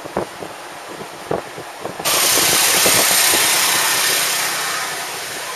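Street traffic noise: a steady rushing of car engine and road noise that starts abruptly about two seconds in and slowly eases toward the end, after a few short faint sounds.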